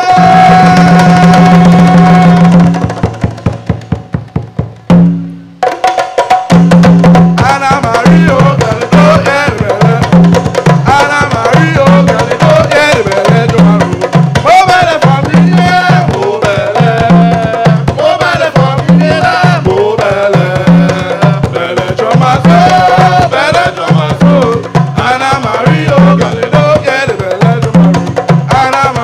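Hand drums, a djembe-style goblet drum among them, with a man singing over them. A held sung note over the drumming gives way to a few fading drum strokes and a short break about five seconds in; then the drumming comes back at a steady beat with the singing running over it.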